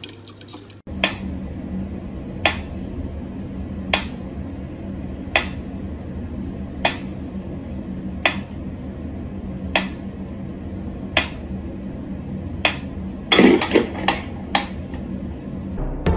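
Mechanical pyramid metronome ticking slowly and evenly, about one tick every second and a half, starting about a second in. Near the end a short cluster of louder knocks breaks in.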